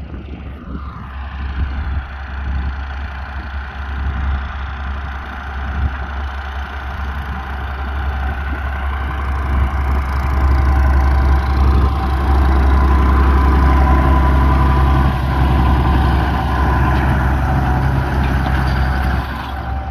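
Fendt 306 tractor engine running steadily while pulling a tine harrow across the field, growing louder about halfway through as it comes closer.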